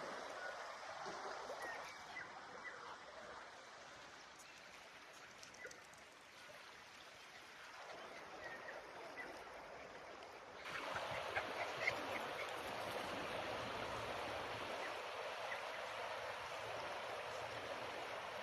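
Faint outdoor ambience: a steady rushing noise with scattered short bird calls. About ten and a half seconds in, it abruptly becomes louder, with more frequent calls and ticks.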